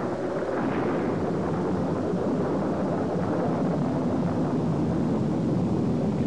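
Steady rushing rumble with no clear pitch or rhythm, part of an animation's sound design.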